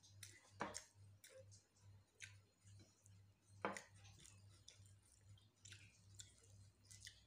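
Faint eating sounds: fingers scooping rice from a glass plate, giving soft ticks and two sharper clicks, one just under a second in and one near four seconds, over a low steady hum.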